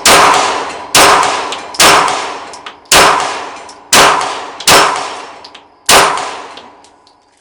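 Seven 9mm pistol shots from a Glock 17 in a Micro Roni chassis, fired about one a second, each followed by a long metallic ringing decay.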